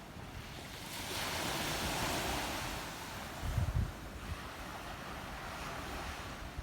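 Sea waves washing on the shore: one wave swells up about a second in and ebbs away by about three seconds. A brief low thump of wind buffeting the microphone follows shortly after.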